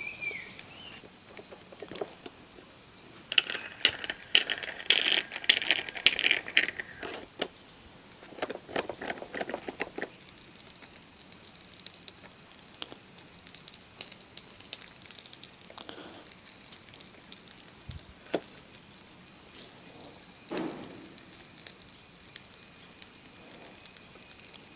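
Metal clinking and rattling from a brass hand-held shavige (string-hopper) press being fitted together and worked, heaviest a few seconds in, then occasional light clicks as the semolina dough is pressed out. Faint steady insect buzz in the background.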